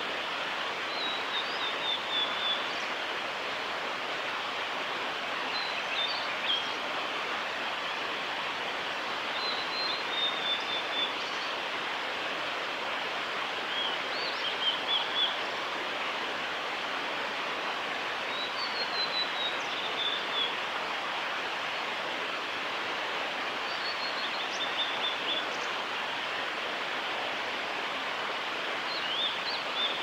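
Male blue-and-white flycatcher singing: about seven short phrases of high, mostly descending notes, one every four to five seconds, over a steady background hiss.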